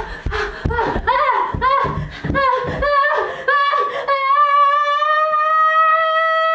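A woman's short, rapid panicked cries, then from about four seconds in one long, high, sustained scream of terror.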